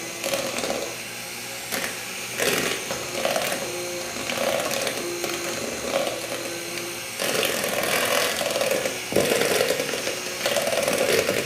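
Electric mixer running, beating a batter of butter, sugar, eggs and cornstarch, its sound swelling and easing as it works and louder from about seven seconds in.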